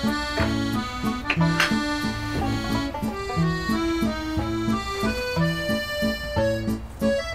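Background music: a light, comic solo accordion tune in a Parisian style, with a melody over a steady, rhythmic bass.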